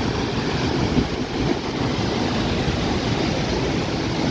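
Waterfall: a steady rushing noise of falling water, heaviest in the low range.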